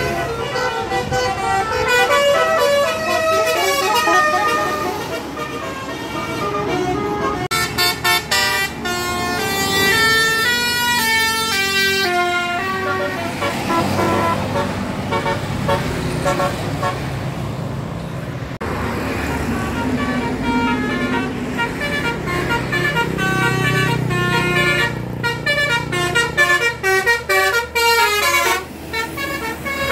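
Tour bus telolet horns playing quick melodic runs of changing notes, in several bursts, with a bus engine running beneath them partway through.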